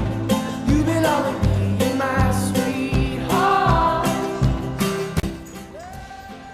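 Pop song with a male singing voice over a steady drum beat and guitar; the beat stops about five seconds in, leaving a quieter held note.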